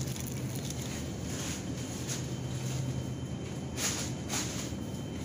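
Supermarket background: a steady low hum with a faint high whine, and four short rustles.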